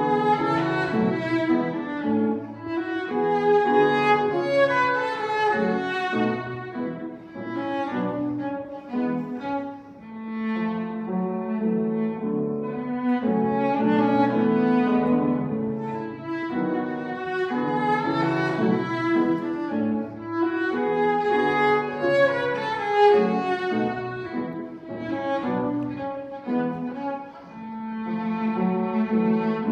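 Cellos playing a slow classical piece together, bowed, with several sustained lines sounding at once.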